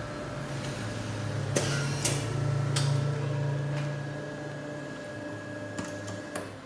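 Ricoh Aficio MP W3600 wide-format printer running as it prints a PostScript configuration page. A steady low motor hum swells about a second and a half in and eases off after four seconds or so, with a handful of sharp mechanical clicks from the paper path.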